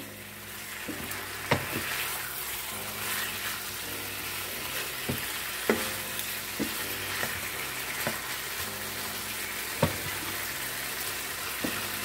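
Seasoned chicken pieces searing in hot oil in a stainless steel pan, sizzling steadily as they brown, while a wooden spatula stirs and turns them. A few sharp clicks stand out above the sizzle.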